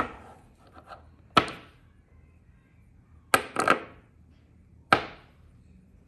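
Copper magnetic fidget slider being slid back and forth, snapping shut against its magnets with sharp metal clicks: five clicks, two of them in quick succession midway.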